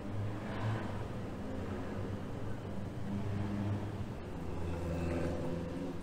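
A motor vehicle's engine running, a low steady hum that shifts in pitch about halfway through.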